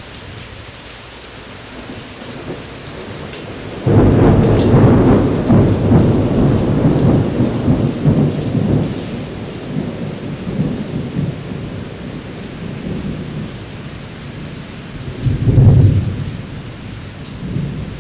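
Thunderstorm: steady rain with thunder. A sudden loud clap about four seconds in rolls on as a rumble for several seconds and slowly fades, and a second loud rumble swells near the end.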